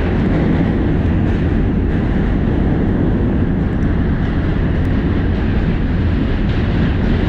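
New York City subway train running across the Manhattan Bridge, heard from inside the car: a steady, loud rumble of the train on the track with no letup.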